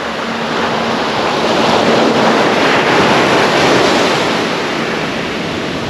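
Small sea waves breaking and washing up a sandy, pebbly beach, the wash swelling for a couple of seconds and then easing off.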